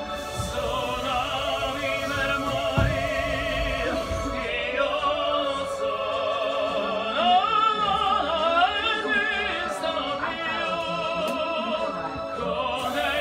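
An opera aria sung with wide vibrato. It swells to its loudest, highest passage about two-thirds of the way through, over the low rumble of the train carriage.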